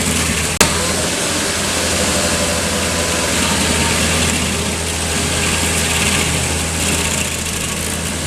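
Stump grinder's engine running steadily under a dense grinding hiss, with one sharp click about half a second in.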